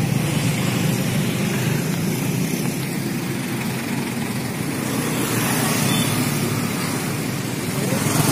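Steady city traffic noise: a continuous rumble of cars on a road, with no single vehicle standing out.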